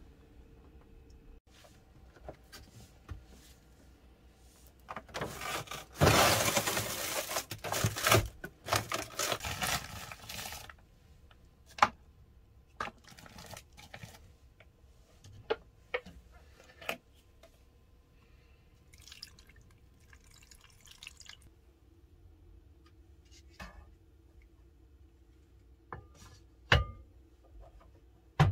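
Water poured into an instant soup cup for about five seconds, among small clicks and knocks of kitchen handling. Near the end a couple of sharp knocks come as a manual microwave's dial is turned. A faint steady hum runs underneath.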